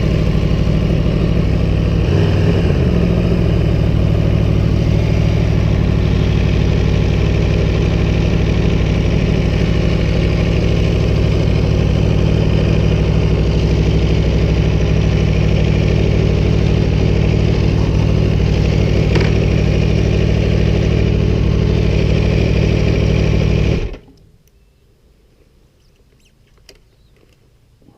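Aprilia Tuono 1100 Factory's V4 engine idling steadily, then switched off and cutting out suddenly near the end, leaving only a few faint clicks.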